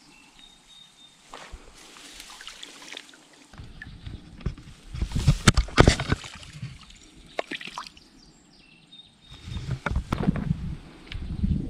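Water sloshing and splashing in a shallow trout stream, quiet at first, then in irregular loud bursts from about four seconds in and again near the end.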